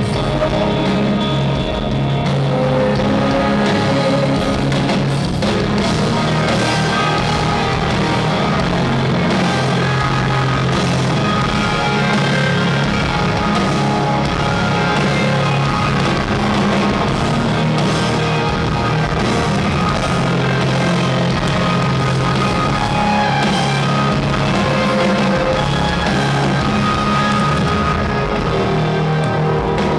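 Live rock band playing at steady full volume, with electric guitars, bass and drum kit, heard from among the audience in a large arena.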